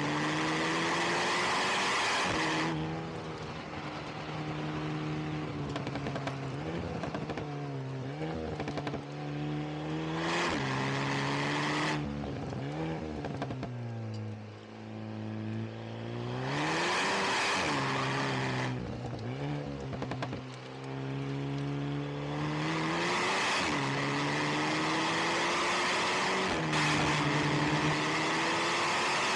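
Alpine A110 R's turbocharged 1.8-litre four-cylinder engine and exhaust driven hard on a circuit. Revs climb repeatedly and drop sharply at each gearchange. About halfway through the engine falls to low revs, then winds up again.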